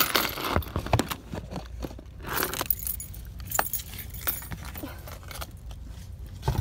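Plastic baskets clattering and rattling as they are handled and pulled from a stack on a shelf, in irregular bursts, mixed with knocks and rubbing from the phone being handled close up.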